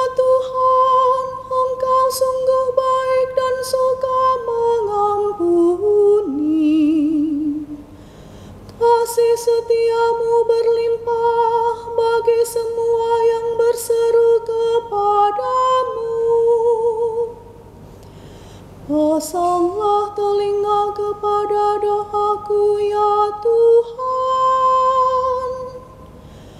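A woman chanting a verse of a responsorial psalm in Indonesian, solo. Each phrase holds long on one reciting note and then steps down to a cadence at its end. There are three such phrases with short pauses between them.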